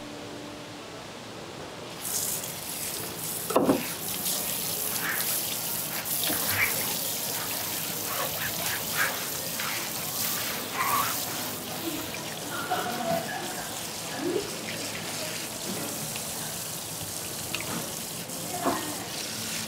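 Water hissing from a hose spray nozzle onto skinned sea bass fillets and a plastic cutting board, turned on about two seconds in. Scattered knocks and clatter through it, the sharpest about three and a half seconds in.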